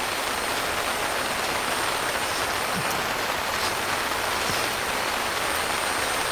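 Heavy rain beating steadily on a tent, heard from inside.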